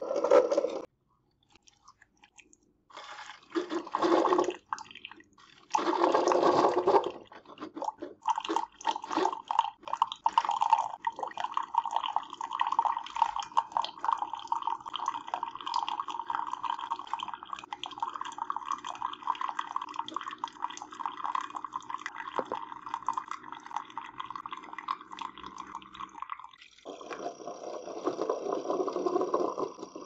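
Keurig K-Slim single-serve coffee maker running a descale cycle. After a few short bursts of noise, a thin stream of hot water pours steadily into a ceramic mug for about eighteen seconds. A louder burst of noise comes near the end.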